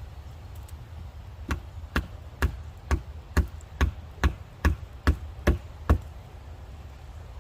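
About eleven sharp, evenly spaced blows, about two a second, driving wooden wedges in behind a post. They start about a second and a half in and stop at about six seconds.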